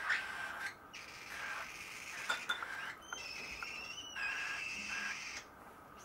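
Baby cockatiels making repeated raspy, hissing begging calls at hand-feeding time, with one held whistle-like call of about a second, three seconds in.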